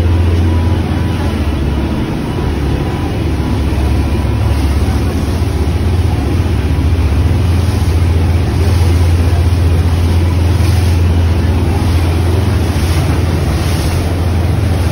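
Passenger boat's engine running steadily under way, a low drone with the rush of wind and water over it.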